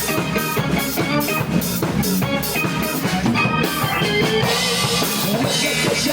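Live band playing an instrumental passage between sung lines: a drum kit keeps a steady beat under bass, guitar and keyboard.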